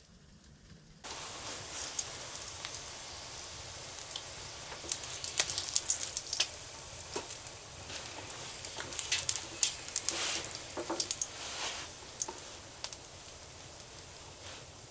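Spam slices sizzling in a frying pan: a steady hiss with scattered sharp pops and spits, starting about a second in.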